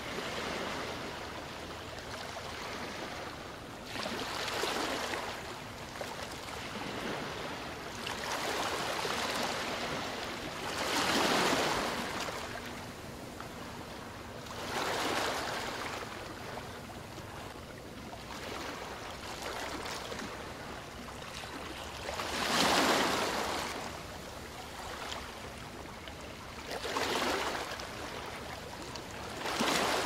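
Ocean surf breaking and washing up a beach, the noise swelling and falling back every three to four seconds, with the biggest waves about a third and three-quarters of the way in.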